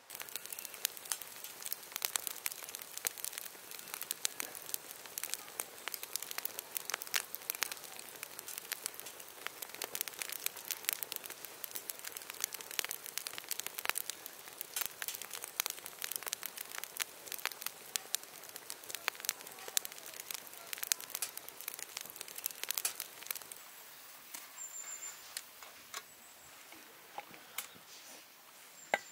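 Firewood burning in a campfire, crackling with a dense run of sharp snaps and pops that thins out and quietens near the end.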